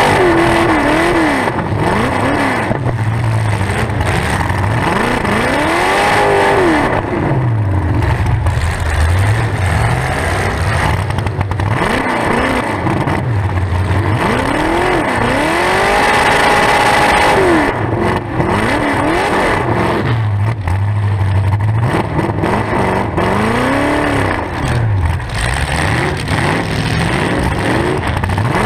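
Demolition derby muscle car's engine running through open upright exhaust stacks, revved up and down again and again, its pitch rising and falling every few seconds and once held high for over a second about halfway through.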